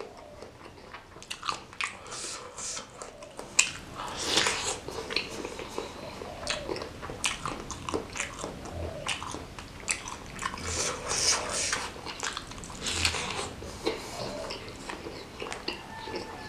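Close-miked chewing of a mouthful of bakso beef meatball in spicy broth, with many irregular sharp mouth clicks and smacks.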